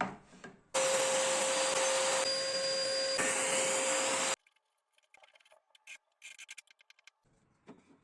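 An electric woodworking power tool running steadily with a constant whine, its sound changing abruptly twice, then stopping suddenly; after it, a few light clicks and knocks of wood being handled.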